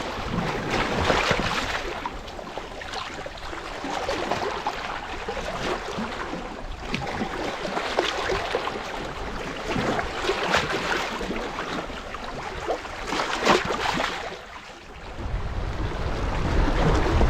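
Wind on the microphone over the sea washing at the shore, with irregular knocks and rustles; the low wind rumble grows heavier near the end.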